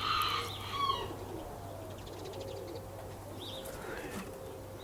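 Pigeons cooing softly, with other birds chirping briefly in the first second.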